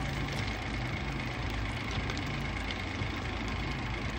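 Thermite reaction burning in a rail-welding crucible, a steady hiss as molten steel and slag pour off into the collection tray, over the steady hum of an idling engine.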